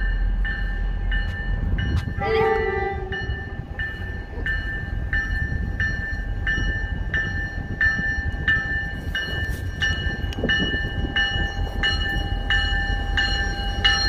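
MBTA F40PH diesel commuter locomotive approaching with a steady low rumble. A bell rings throughout, about three strokes every two seconds, and a short horn sounds about two seconds in.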